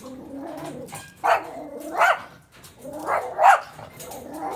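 Dog barking: a run of four loud barks with lower growly noises between them.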